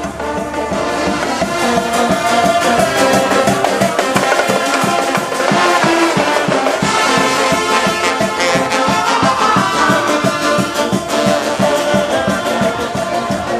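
Brass band music: horns playing held notes and a tune over a steady beat.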